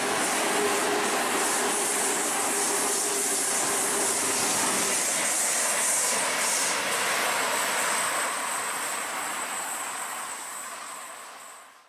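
Passenger train pulling away along the track: a steady rumble and rail noise, with a steady engine-like tone for the first few seconds. The sound fades out near the end.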